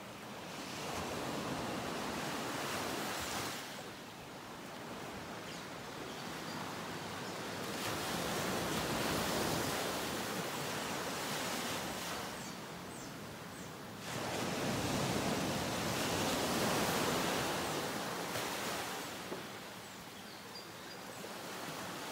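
Ocean surf washing onto a shore in three slow swells, each building and fading over a few seconds.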